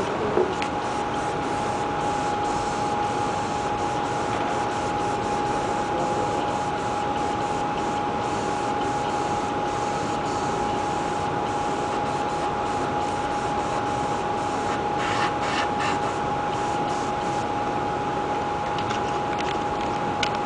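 Airbrush spraying paint: a steady hiss of compressed air with a constant single tone running under it.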